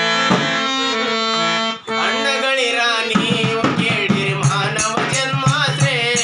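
Kannada folk awareness song beginning: a harmonium plays the introductory melody in held chords. About three seconds in, a man starts singing. Small hand cymbals (tala) begin keeping time soon after.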